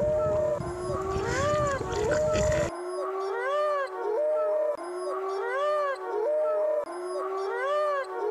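A short howl that rises and falls, repeated the same way about every two seconds like a loop. Under it, a low rumble cuts off suddenly about two and a half seconds in.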